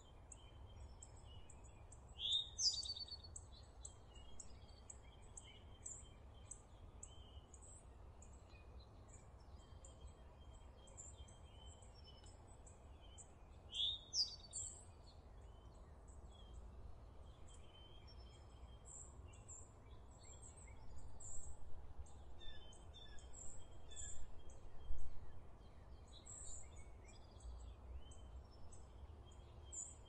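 Songbirds calling: a steady run of short, very high chirps, with two louder rising calls about two seconds in and near halfway, and a busier stretch of mixed calls in the last third. A low, steady rumble lies underneath.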